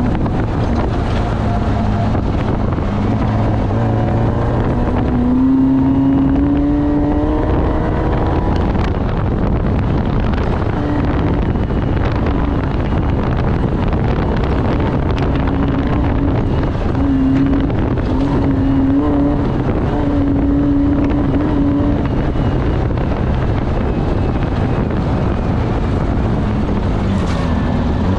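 Off-road race vehicle's engine running hard, its pitch rising as it revs about five to seven seconds in and again in short stretches later on. Wind buffets the microphone, and there are scattered knocks throughout.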